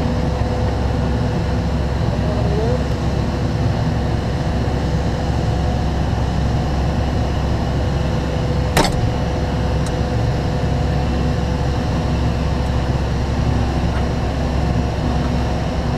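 Ladder truck's engine and aerial hydraulics running steadily as the bucket is lowered: a steady rumble with a held whine over it. A single sharp click sounds about nine seconds in.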